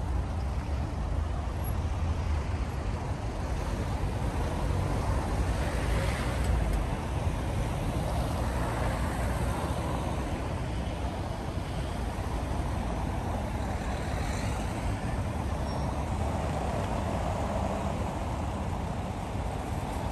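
Street traffic: cars driving over cobblestone roads, a steady rumble of engines and tyres that swells several times as vehicles pass close by.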